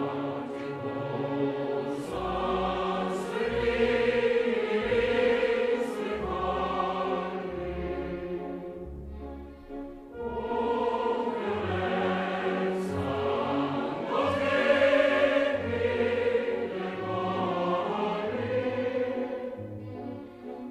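A choir singing a slow piece in held chords, with a short break between phrases about halfway through.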